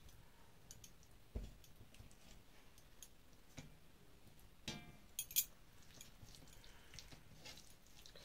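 Faint sounds of rice being mixed with curry by hand on a metal plate: soft squishes and small clicks, a dull thump about a second and a half in, and a few sharp clinks around five seconds in.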